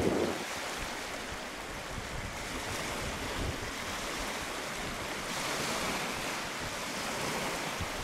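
Steady rushing wash of wind and water, like small waves, even throughout and a little brighter in the second half.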